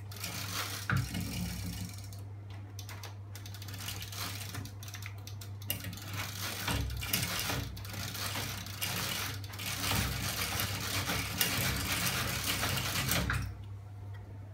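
Homemade flywheel mechanism with bicycle chain and sprockets running, a fast rattling clatter of chain, springs and linkages over a steady low hum; it stops abruptly near the end.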